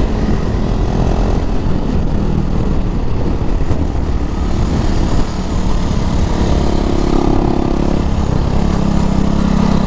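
KTM sport motorcycle's engine running at speed through a series of corners, heavy wind rush over the microphone mixed in. The engine note dips briefly about five seconds in, then picks up again.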